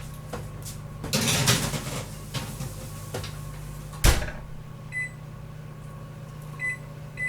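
A baking sheet rattles and scrapes as it goes into an oven, and the oven door shuts with a bang about four seconds in. Then an appliance keypad beeps three times, short and evenly pitched, as a 15-minute timer is set.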